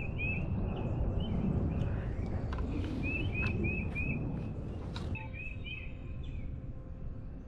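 A small bird calling: short chirps in quick runs of three or four, over a steady low rumble that falls away about five seconds in. A few sharp clicks sound in the middle.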